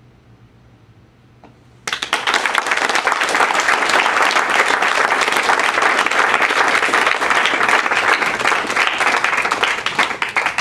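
Small audience applauding, breaking out suddenly about two seconds in and going on as dense, steady clapping.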